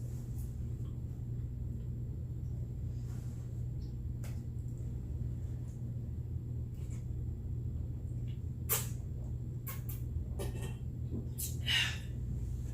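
Steady low hum of room background noise, with a few short sharp clicks and a brief rustle in the last four seconds.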